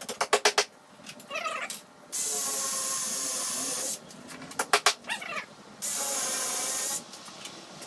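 Cordless drill working on plywood: short bursts of motor whine rising and falling in pitch with rapid clicking, and two steady runs, one about two seconds long near the middle and a shorter one later.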